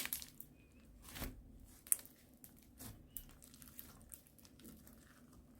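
Ice slime being pressed and stretched by hand, its hardened surface giving sparse faint crackles and soft squishes, with a few sharper crackles in the first two seconds.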